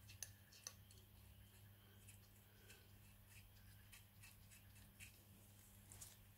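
Near silence: a low steady hum with a few faint, scattered clicks.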